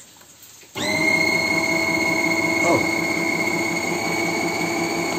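Built-in burr grinder of a Vestel grind-and-brew coffee maker switching on about a second in, its motor quickly rising to a steady high whine, then cutting off near the end with the pitch dropping as it spins down. It runs empty, with no coffee beans in it.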